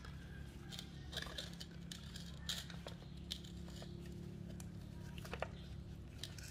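Scattered light clicks and rubbing of hard plastic as a replacement radiator cooling-fan motor and its wiring are pushed into a plastic fan shroud, over a steady low background hum.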